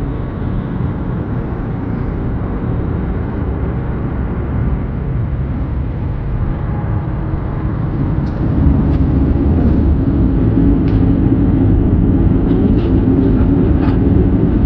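Steady road and engine rumble of a car heard from inside the cabin while driving, growing louder about eight and a half seconds in.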